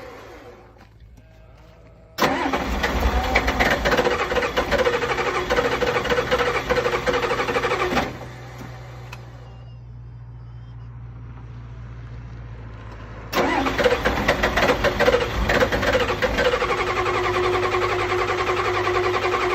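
Engine cranking on its starter in a hard start that won't catch: a burst of about six seconds, a pause with a low steady hum, then cranking again from about two-thirds through.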